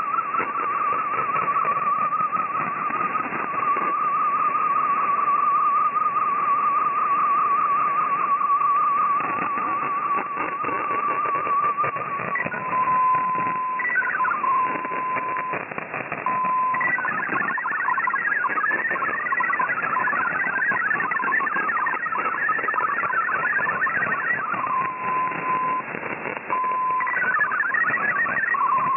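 MFSK64 digital data signal received on shortwave, over a steady hiss of static. A warbling tone near 1 kHz carries the last of an image transmission, then gives way to a steady single tone. Past the middle comes a rapid, busy chatter of hopping tones as a line of text is sent, then the steady tone again and another short burst of data near the end.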